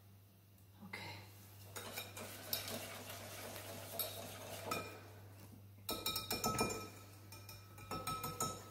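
Wire balloon whisk beating pancake batter in a glass bowl, the wires clinking rapidly against the glass in bouts that are busiest about six seconds in and near the end. A faint steady low hum runs underneath.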